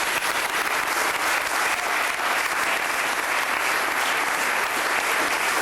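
Audience clapping steadily in a hall, applauding a scholarship recipient called forward.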